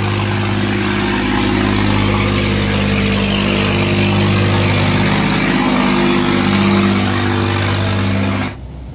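Cargo barge's engine running hard at a steady pitch, with the rush of churned water from its propeller wash as it passes close by. About eight and a half seconds in, it cuts off abruptly to quieter wind and water.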